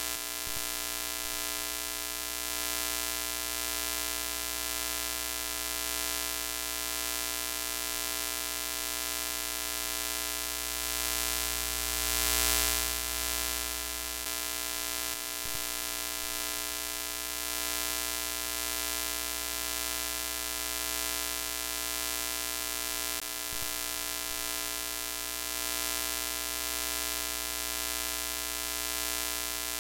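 Broken-TV static and electrical buzz sound effect: a steady hiss under a hum of many steady tones. It swells briefly about halfway through, with a couple of faint clicks later on.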